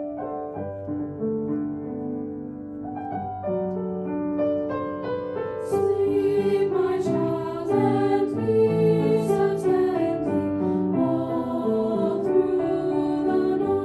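Piano accompaniment, then a small ensemble of teenage girls' voices singing in parts comes in about six seconds in, over the piano.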